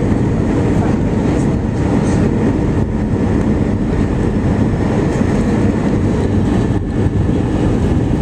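Steady cabin noise inside an Airbus A320 on final approach: engine and airflow noise, heaviest in the low end, holding at an even level.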